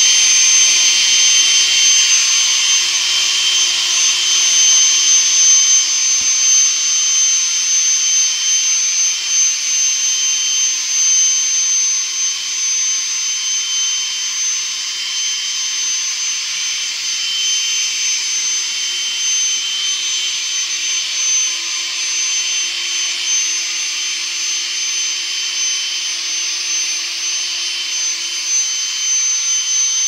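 The small vacuum motor of a homemade robot vacuum cleaner runs steadily, a loud, even rush of air with a thin, high-pitched whine over it.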